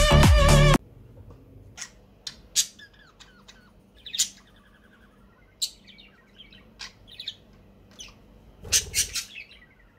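Background music cuts off about a second in. A pet budgerigar then chirps and squawks in short, scattered calls, with a louder flurry near the end.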